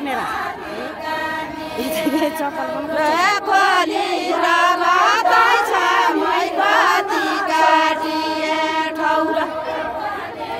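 A group of women singing a Deuda (ratyauli) folk song together in chorus, unaccompanied, in long held notes that waver in pitch.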